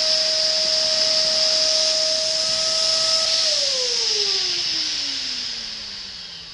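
Vacuum cleaner motor running with a steady whine over rushing air, then switched off about three and a half seconds in, its whine falling in pitch and fading as it winds down.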